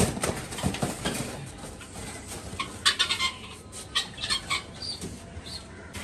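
Two helmeted guineafowl flapping and struggling as they are pulled out of a wire cage and held by the wings and legs, their wings beating in quick, irregular bursts against the cage.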